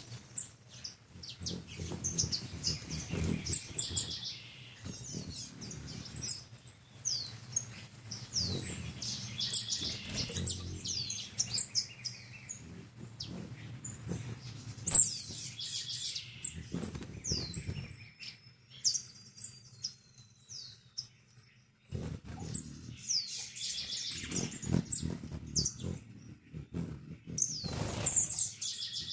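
Hummingbirds at sugar-water feeders: many short, high, downward-sweeping chirps and squeaks in quick bouts, with a lull about two-thirds through. A low wing hum comes and goes as the birds hover.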